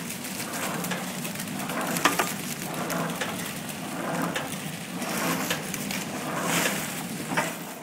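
Soap flow-wrapping machine running as it wraps soap bars in clear plastic film: a steady motor hum under a rustling, clattering swell that repeats about once a second. Sharp clicks come about two seconds in and near the end.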